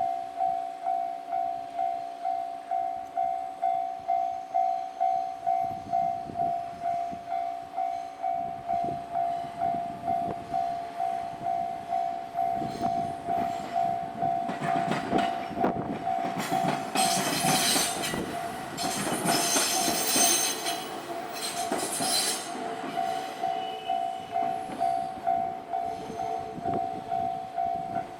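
Electronic level-crossing warning bell clanging about twice a second while a train passes over the crossing. The train's rumble and wheel clatter build up, are loudest in the middle, and fade, and the bell cuts off at the end.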